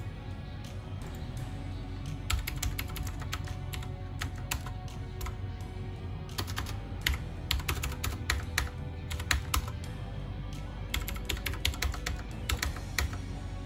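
Typing on a computer keyboard: runs of quick key clicks broken by pauses, over steady background music.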